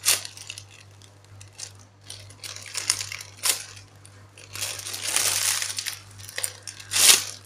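Clear plastic packaging crinkling and crackling as a large bread-shaped foam squishy is squeezed inside it by hand, in irregular spells: a sharp crackle at the start, a longer rustle about five seconds in, and the loudest crackle near the end.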